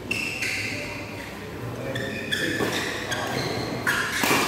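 Badminton rally: several sharp racket strikes on the shuttlecock, with shoes squeaking on the court mat between them. The loudest strike comes near the end, as a player jumps to smash.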